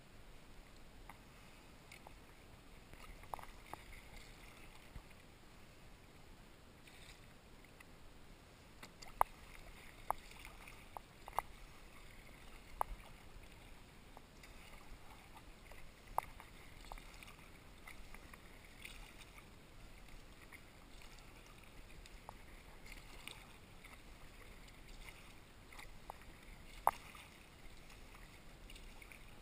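Faint, repeated splashing of a Werner kayak paddle's blades dipping into calm shallow water as a sea kayak is paddled, with a few short, sharp clicks here and there.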